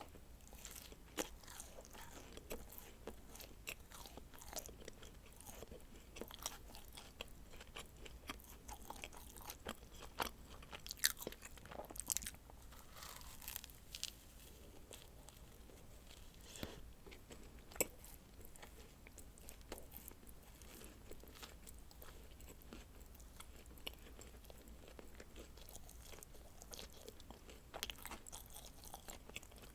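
Close-miked biting and chewing of dacquoise, the crisp meringue shells crunching in many small sharp clicks, with a few louder bites scattered through.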